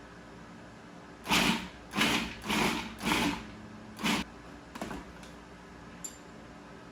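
Food processor pulsed in five short bursts, chopping and blending basil pesto, followed by a couple of faint clicks.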